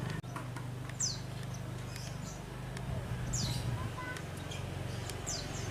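Lovebirds giving short, shrill chirps that sweep downward, three spaced calls over a steady low hum.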